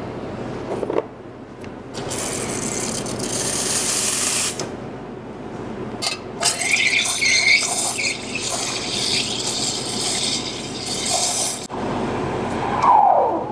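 Espresso machine steam wand hissing into a steel pitcher of chai and eggnog: a burst of hiss about two seconds in, then a longer stretch of hissing with chirping, squealing bursts, and near the end a squeal that falls in pitch.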